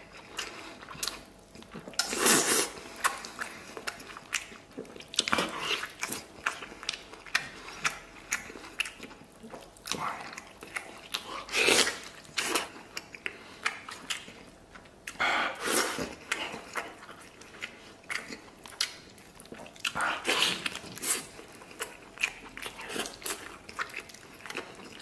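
Close-up wet eating sounds of a man gnawing and sucking tender braised pork leg bone meat: chewing, lip smacks and small clicks, with louder sucking slurps every few seconds.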